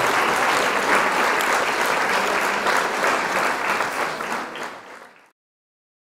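Crowd applauding, a dense patter of many hands clapping that fades out about five seconds in and ends in silence.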